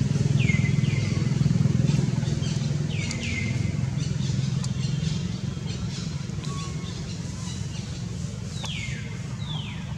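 A low engine rumble, louder in the first half and fading after about five seconds. Over it come pairs of short, high calls that fall in pitch: near the start, about three seconds in, and near the end.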